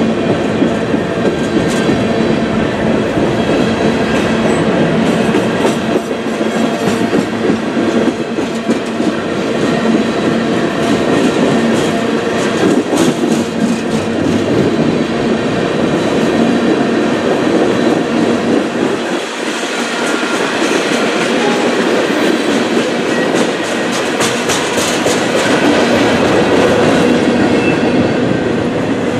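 Freight train cars rolling past close by: a steady rumble of steel wheels on rail, with runs of clickety-clack as wheelsets cross the rail joints, from a mixed train of covered hoppers, tank cars and intermodal well cars.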